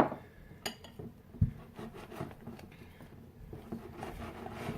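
Sticky fluffy slime being mixed by hand: scattered small wet clicks and squelches, with one dull thump about one and a half seconds in.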